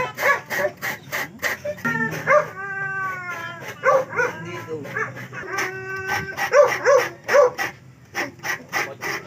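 A dog barking and yelping repeatedly, with a few longer whining cries.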